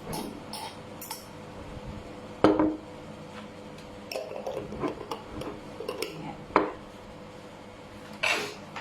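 Cutlery clinking and scraping against plates and a bowl as someone eats, in scattered light clicks with a sharper knock about a third of the way in and another past the middle.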